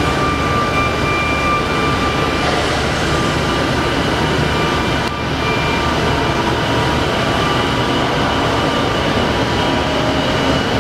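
Steady mechanical running hum of heavy shop machinery, with faint high whines that fade in and out.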